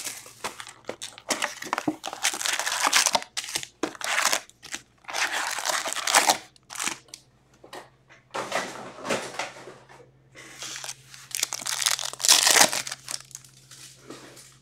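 Plastic shrink-wrap crinkling and tearing in irregular bursts as a hockey card hobby box is unwrapped, followed by foil card packs rustling as they are handled and torn open.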